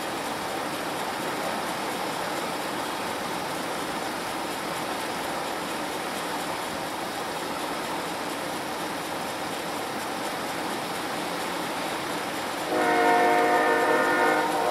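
Diesel freight locomotives led by CSX 3247 rumbling steadily as they approach slowly. About thirteen seconds in, the locomotive's air horn sounds, several tones at once, louder than the rumble.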